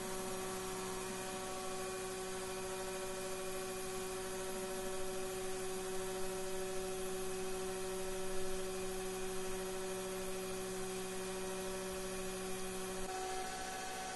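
Taig CNC mill running, a steady hum with several steady whining tones; about 13 seconds in, the lower tones stop and a higher one takes over as the machine's motion changes.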